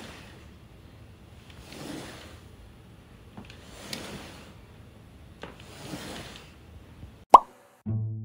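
Plastic baby walker being pushed back and forth on a foam play mat, its wheels rolling with a soft swish about every two seconds and a few light clicks. Near the end a sharp loud tone sounds and a children's jingle starts.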